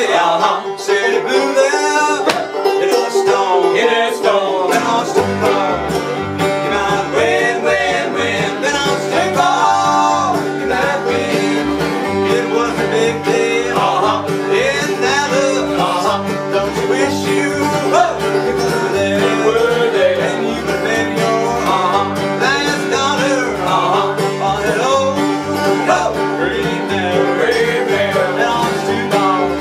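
A bluegrass string band playing a tune on fiddle, acoustic guitar, mandolin, banjo and upright bass. The upright bass comes in about five seconds in with a steady plucked beat under the melody.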